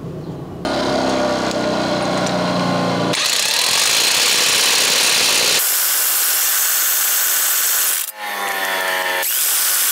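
Bauer corded 1/2-inch impact wrench tightening semi truck wheel lug nuts. The motor whirs as it spins a nut down, then the hammer mechanism rattles hard as the nut seats, from about three seconds in. It stops briefly about eight seconds in, spins up again and goes back to hammering.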